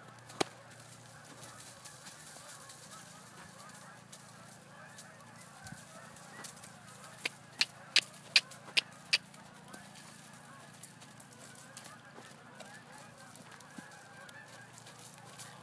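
Hoofbeats of a trotting Appaloosa horse: a run of six sharp, evenly spaced beats, about two and a half a second, midway through, over a faint continuous background.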